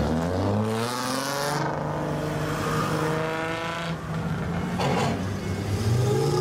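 Lowered cars' engines revving as they pull away. The pitch climbs over the first second and a half, holds steady, then climbs again near the end as the next car accelerates.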